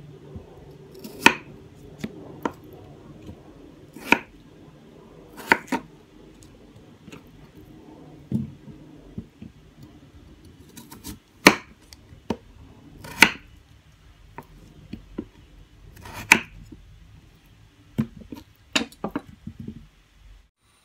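Kitchen knife chopping peeled potatoes into quarters on a wooden cutting board: a dozen or so sharp knocks of the blade hitting the board, irregularly spaced a second or several apart.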